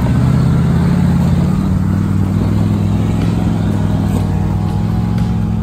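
Off-road 4x4's engine running steadily while driving, a low drone that shifts slightly in pitch.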